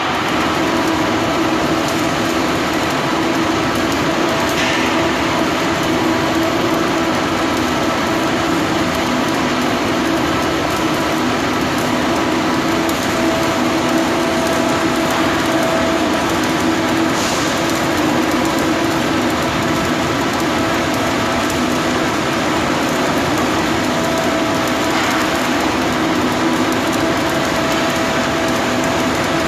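Welding noise inside a large steel tank during a repair: a continuous, even hiss over a steady hum, holding at one level throughout.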